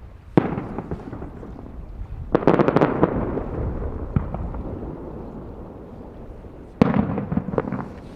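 Aerial fireworks shells bursting overhead. A sharp boom comes about half a second in, then a rapid cluster of crackling bursts a couple of seconds later, and another boom near the end followed by crackles, each with a rumbling echo after it.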